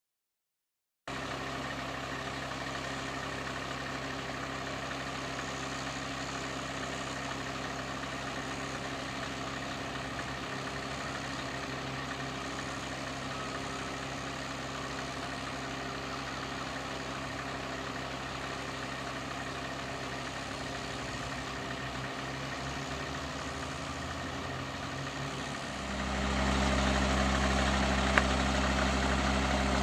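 Heavy diesel engines idling steadily, starting about a second in. Near the end a deeper, louder engine note comes in as the refrigerated lorry pulls forward.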